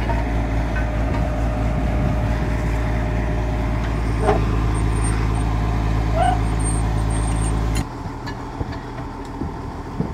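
Engine of a drilling rig built on a modified Muir Hill tractor, running steadily with a low hum, with two short squeaks midway. It stops suddenly about eight seconds in, as the drill reaches the bottom of the hole.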